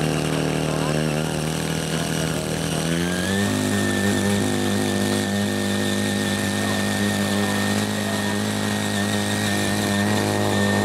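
Small engine of a CY80 mini power tiller running under load as its rotary tines churn hard red clay. About three seconds in, the engine speeds up to a higher steady pitch and holds there.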